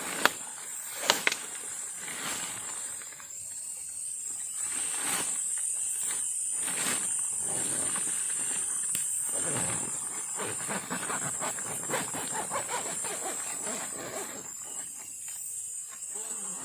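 Steady high-pitched drone of night insects in tropical forest, with a few sharp knocks near the start and irregular rustling and handling noises.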